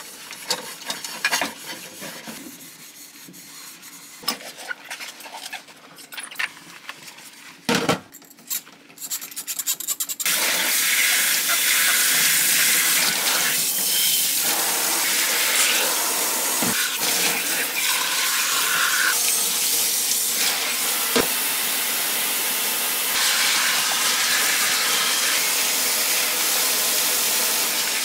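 Dishes being scrubbed and knocked together in a stainless-steel sink, with scattered clinks, then about ten seconds in the kitchen tap turns on and water runs steadily over the dishes as they are rinsed.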